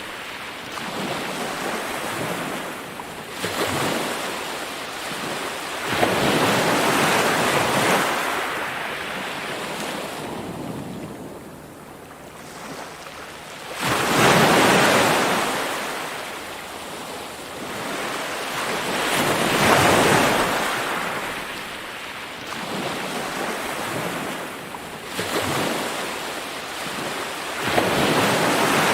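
Ocean surf: waves breaking and washing in, the rush of water swelling and fading every few seconds, with a quieter lull a little before the middle.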